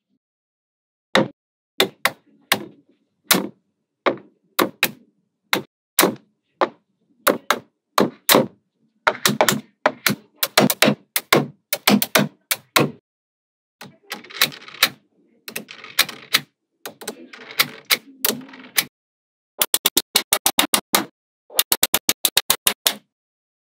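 Small neodymium magnetic balls clicking and snapping together as strips and clusters are fitted into place: single sharp clicks at irregular intervals, with some softer rattling of balls in the middle and two quick runs of rapid clicks near the end.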